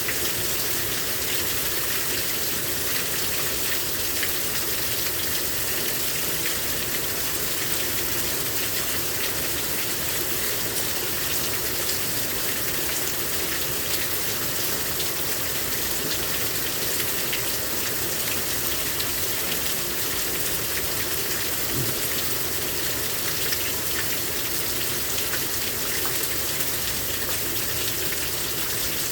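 Heavy rain pouring down steadily, a dense even hiss with scattered drop ticks.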